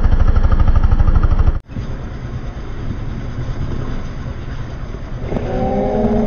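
Motorcycle engine running with a fast, even pulse. After an abrupt cut about a second and a half in, the engine and road noise carry on more quietly, and the engine's pitch climbs near the end as it revs up.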